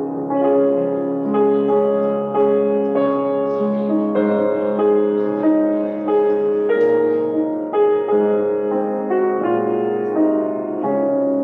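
Slow instrumental music on a keyboard, held chords changing about every half second to a second.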